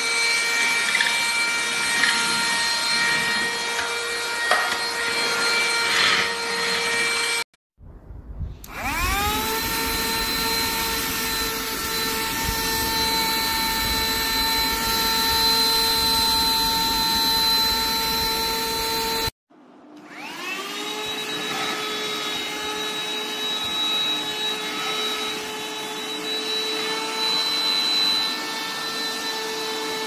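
Cordless stick vacuum cleaner running with a steady high whine. The sound cuts out twice, about seven seconds in and again near twenty seconds. Each time the motor starts again, its whine rises quickly to a steady pitch.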